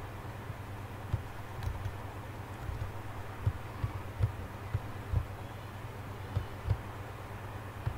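Irregular short low thumps and taps, about one or two a second, from a digital pen writing on a tablet, over a steady low hum.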